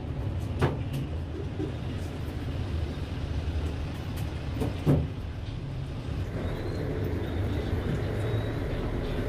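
Steady low rumble with two short, sharp knocks, one just under a second in and one about five seconds in.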